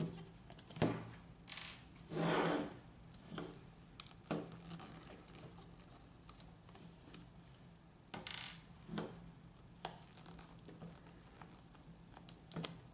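A T10 Torx screwdriver backing out small metal screws from a toner cartridge's doctor blade. There are faint scattered clicks and a few short scrapes as the bit turns and the screws and parts are handled.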